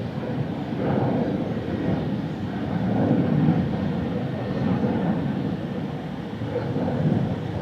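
Low, uneven rumble of distant engines over the city, swelling and fading every second or two.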